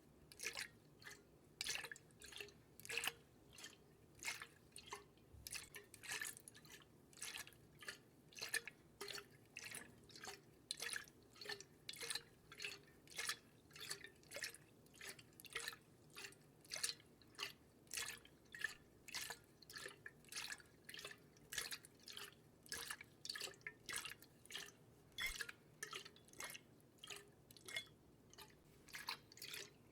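Close-miked water dripping: a steady run of small drops and plops, about two a second.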